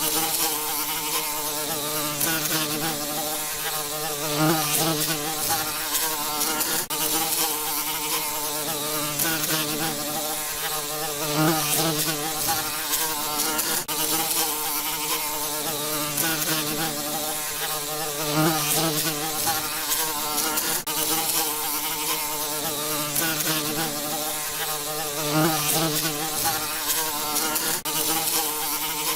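Bees buzzing in flight: a steady, pitched drone with a rich buzz, swelling briefly about every seven seconds.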